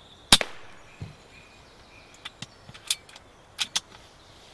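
A single sharp crack from a shot with a silenced Air Arms S410 pre-charged air rifle, with a dull thud about a second later and a few smaller sharp clicks after it.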